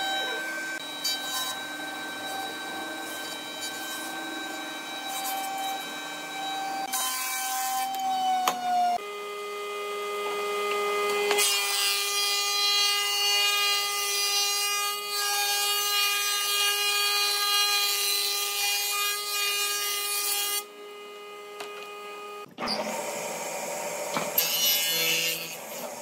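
Woodworking machines planing and ripping boards: steady machine whines with a hiss of cutting wood, which change abruptly several times. First a jointer planes a wide board. Then a planer shaves a plank, the loudest part. Near the end a table saw rips a long board.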